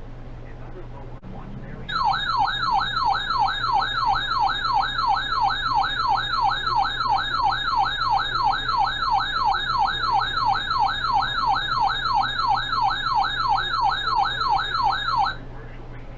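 Electronic siren-style alert tone in a fast yelp pattern: rapid rising sweeps about three times a second, starting about two seconds in, lasting about 13 seconds and cutting off sharply. Underneath it are a steady low hum and radio hiss.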